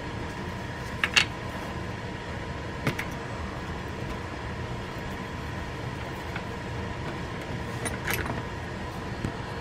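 A few short clicks and light handling noises from a small plastic fishing-reel part being turned in gloved hands while tape is worked off it: one about a second in, another near three seconds, a small cluster near the end. Under them runs a steady background hum with a faint high tone.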